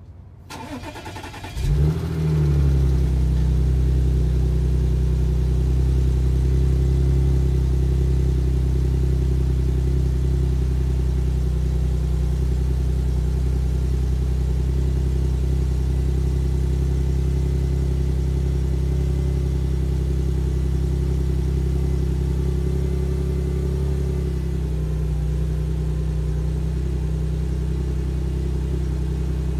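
Audi S4 B8's supercharged 3.0 V6 cold-starting through its stock exhaust. The starter cranks for about a second, then the engine catches with a short flare of revs and settles into a steady, raised cold-start idle. About 24 seconds in, the idle drops slightly lower.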